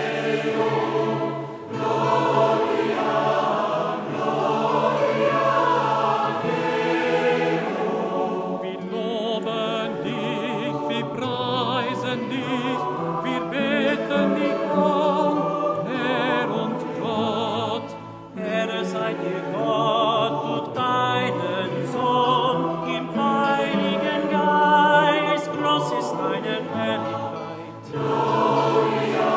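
Choir singing slow, sustained phrases in several voices, with vibrato on held notes from about eight seconds in and short breaths between phrases.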